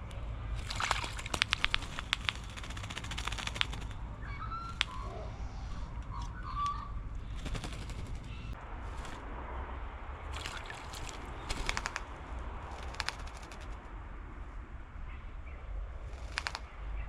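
Wattlebirds giving harsh, rapid rattling calls in repeated bursts, the longest about three seconds, with a few short squeaky notes between. A steady low rumble runs underneath.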